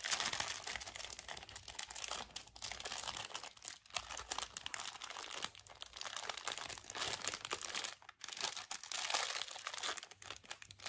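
Clear plastic wrapping crinkling and crackling in irregular handfuls as a kids' watch is unwrapped, with short pauses about four and eight seconds in.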